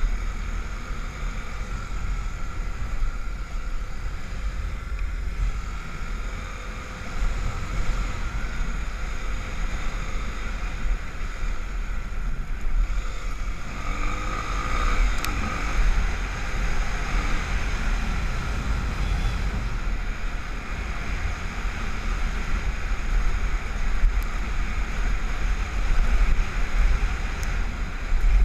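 Honda XR250 Tornado's single-cylinder four-stroke engine running while the bike is ridden on beach sand, with wind buffeting the microphone. The sound thickens about halfway through.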